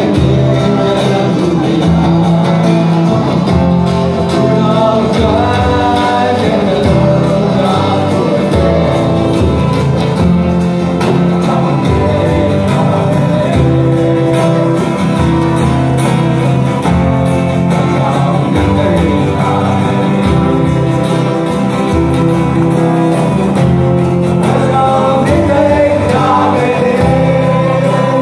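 Live acoustic band playing a song: a man's voice singing with backing voices over strummed acoustic guitars, a violin and a djembe hand drum.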